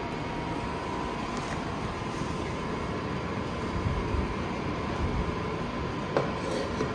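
Steady indoor room noise: a low hum and hiss with a faint constant high tone, and a small click about six seconds in.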